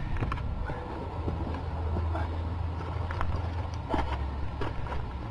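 Wind rumbling on a handheld camera's microphone, with scattered clicks and scuffs of footsteps on a rocky trail during a steep climb.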